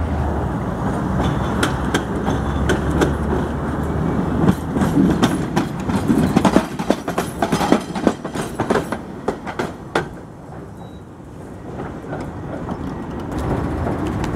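Tatra T3SUCS tram passing close by: a low steady motor hum as it comes up, then a quick run of loud wheel clicks and clatter over the track from about four to ten seconds in, which then fades. Near the end the level rises again as another Tatra tram draws up.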